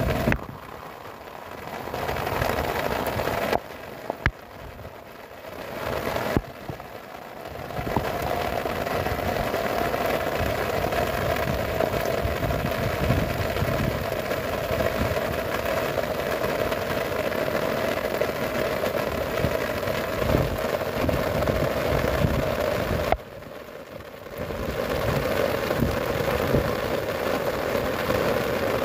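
Heavy rain with gusting wind buffeting the microphone: a loud, steady rushing noise with a low rumble. It drops away briefly a few times and comes back.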